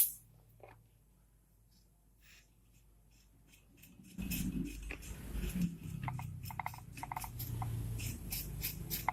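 Almost silent for about four seconds, then low room noise with faint, irregular rubbing and scraping as dust is wiped or brushed out of an opened laptop around its RAM slot.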